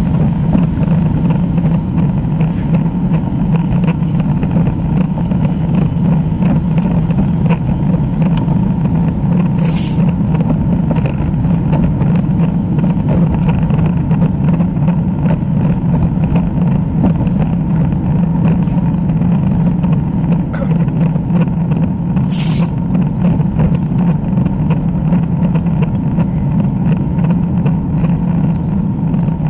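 Steady, loud wind and road noise from riding a road bike, with two short hissing bursts about ten and twenty-two seconds in.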